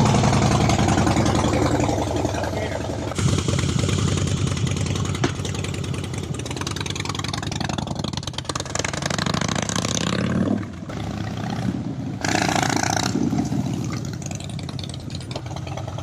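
Harley-Davidson Fat Boy Lo's V-twin engine running as the motorcycle pulls away on a ride. It is loud at first and grows fainter, with sudden rises and drops in level along the way.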